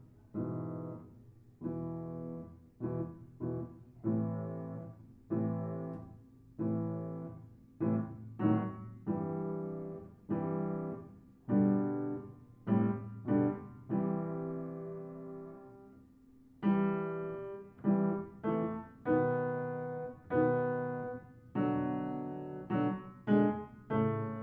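Solo piano music: a steady run of struck chords, each ringing and fading before the next, with one longer held chord about two-thirds of the way through.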